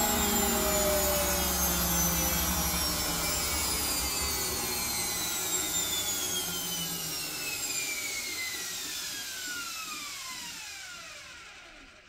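Front-loading washing machine spinning a puffer jacket and winding down at the end of its spin: the motor and drum whine falls steadily in pitch as the drum slows, and the sound fades away near the end.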